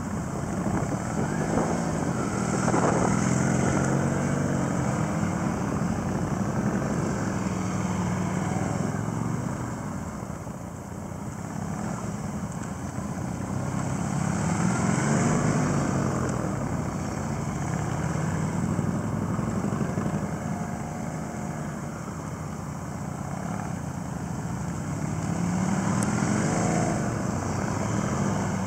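Cruiser motorcycle engines at low speed through a cone weave, the exhaust note rising and falling with the throttle. The sound swells three times as a bike passes close and fades as it rides away.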